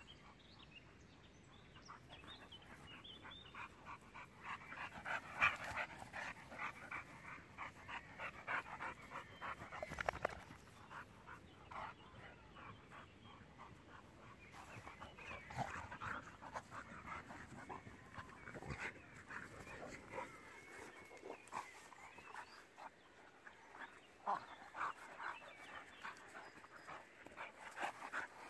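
Dogs panting hard during rough play, a boxer and a pitbull, in spells of quick, rapid breaths.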